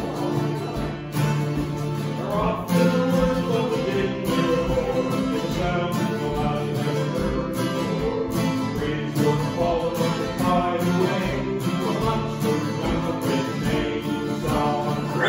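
Two acoustic guitars strummed together, playing a steady tune live.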